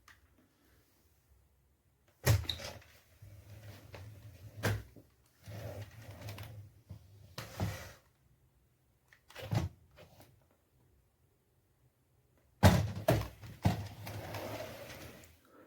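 Handling noises: a series of clunks and knocks with rustling between them and short quiet gaps, the loudest knocks about two seconds in and near the end.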